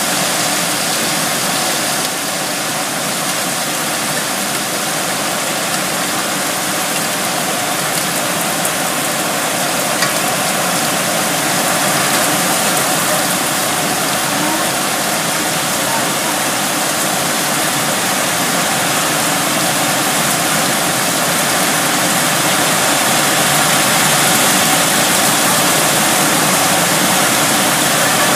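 Heavy rain pouring in a windstorm: a dense, steady hiss that grows slightly louder over the last few seconds.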